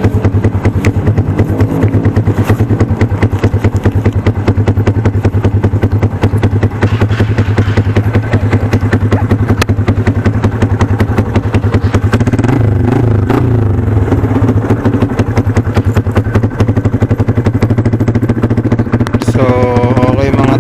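RS125 motorcycle engine, bored to 57 mm with a big-valve head and 28 mm Keihin round-slide carb, idling with a rapid, steady beat through a VMAX tube-type open exhaust, its note crisp. It gets a little louder about twelve seconds in.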